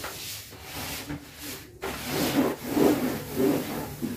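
A cloth rubbed back and forth over the side of a perforated plastic laundry basket, wiping it clean: a run of rubbing strokes, strongest in the second half.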